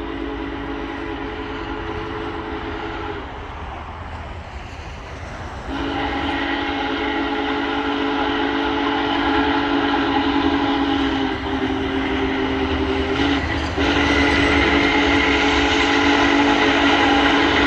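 Union Pacific Big Boy 4014's steam whistle blowing a chord in long blasts: one ends about three seconds in, another runs from about six to thirteen seconds, and a third starts just after a short break. It gets louder as the locomotive approaches.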